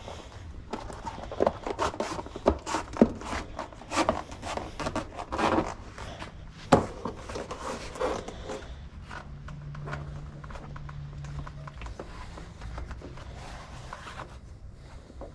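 Rubber tire bead being worked by hand into a mountain bike rim over a new inner tube: irregular scraping and rubbing with sharp knocks, busiest in the first half and thinning out after about eight seconds. A low hum sounds for about three seconds in the middle.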